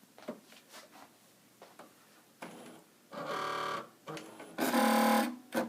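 Spiegel 60609 computerized sewing machine being switched on: a few small clicks, then two short steady start-up sounds, the second louder, and a click near the end.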